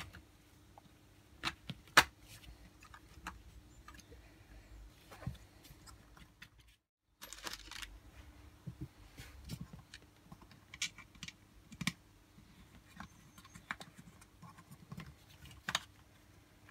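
Scattered clicks and knocks of 3D-printed plastic robot hand and forearm parts being handled and fitted together, the loudest knock about two seconds in, over a faint steady hum.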